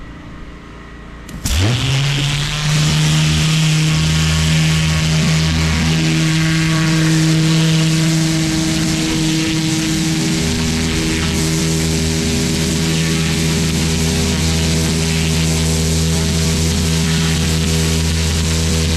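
Pressure washer firing through a turbo (rotating) nozzle onto block paving. The jet starts suddenly about a second and a half in, with the machine's pitch rising as it takes the load. It then runs as a loud, steady hiss of water over the drone of the washer's pump and motor.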